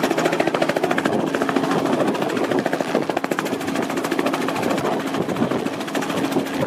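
Light two-blade helicopter hovering low and moving closer: a fast, even chop from the rotor blades over a steady engine tone.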